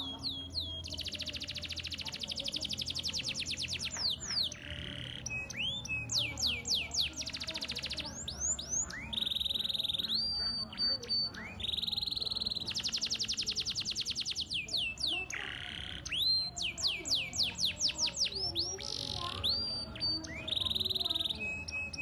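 Canary singing a long, varied song: fast rolling trills alternating with quick sweeping notes and short held whistles, with hardly a pause.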